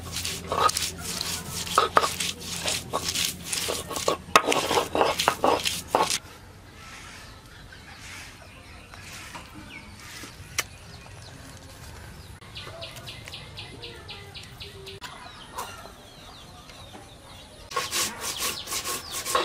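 Stone roller worked back and forth on a flat grinding stone (shil-pata), crushing garlic cloves into paste with rapid scraping, crunching strokes for about six seconds. A quieter stretch follows, and near the end the grinding strokes start again, now on cumin seeds.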